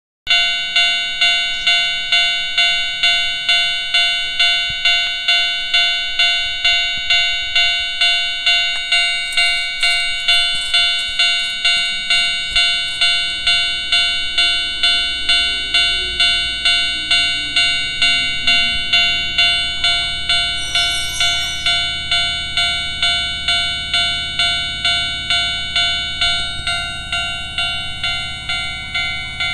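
Japanese level-crossing alarm bell ringing steadily at about two strokes a second, its tone slightly cracked and distorted. A train's low rumble builds in about halfway through, with a falling tone and a brief hiss about two-thirds in.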